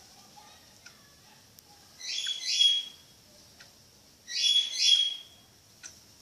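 A pet bird calling twice, each call a quick pair of scratchy notes, about two seconds apart.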